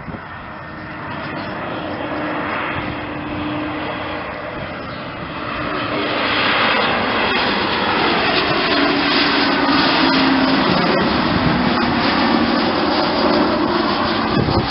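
Twin turbofan engines of an Embraer 190 jet airliner flying low past, growing louder about halfway through, with whining tones that slide down in pitch as it goes by.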